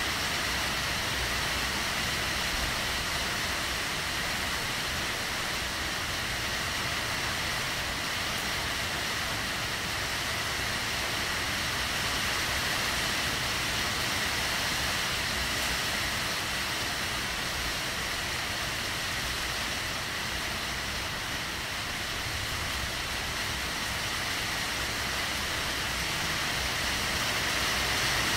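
Heavy rain falling steadily, an even hiss with no breaks or thunderclaps.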